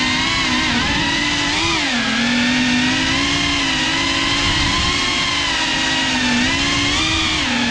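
GEPRC Cinelog 35, a small ducted FPV cinewhoop, with its brushless motors and propellers whining as it flies, heard from the camera on board. The pitch shifts up and down with the throttle, dropping about two seconds in and rising again near the end.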